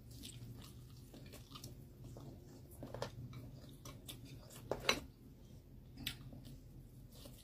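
Close-miked chewing and mouth sounds of someone eating fried egg and instant noodles: soft wet clicks and smacks, with a sharper click about five seconds in, over a low steady hum.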